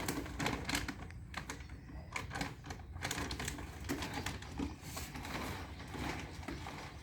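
Kitten eating, its chewing making rapid, irregular little clicks.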